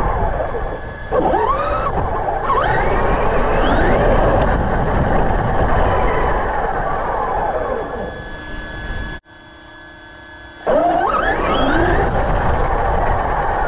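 Electric RC monster truck's motor and drivetrain whining up in pitch each time the throttle is opened, several times, over a steady low rush of noise. The sound drops away suddenly about nine seconds in and comes back a second and a half later with another rising whine.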